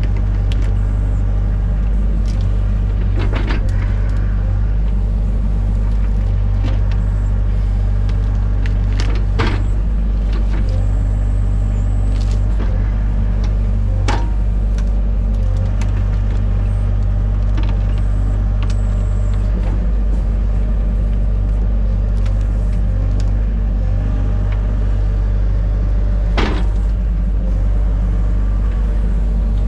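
Excavator engine running steadily under load, with a few sharp cracks and knocks from the machine's digging work.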